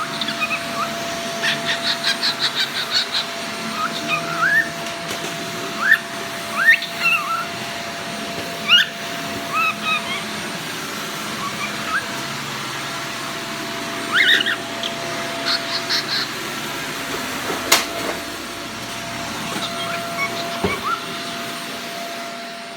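Vacuum cleaner running steadily with a constant hum, while a young cockatiel chirps and whistles over it in short rising calls and quick trills. A single sharp click comes about three-quarters of the way through.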